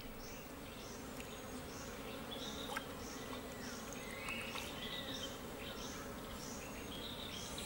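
Forest ambience: an insect calling in a steady pulse about twice a second, with a few faint whistled notes.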